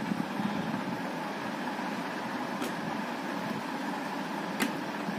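Steady whir of a running electric fan, with two small plastic clicks as the helmet's visor parts are handled; the second click, near the end, is sharper.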